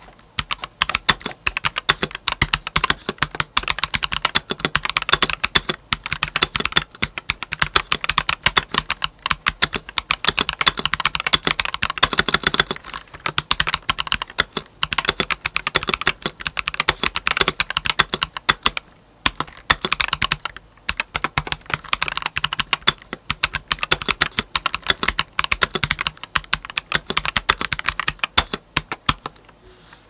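Fast typing on a stock Akko 5075S mechanical keyboard with Akko White Wine switches and Akko black ASA keycaps: a dense, continuous run of keystrokes, with short breaks about nineteen and twenty-one seconds in. The keystrokes sound clacky and uneven from key to key, which the owner puts down to scratchy stock switches and mediocre stock stabilizers.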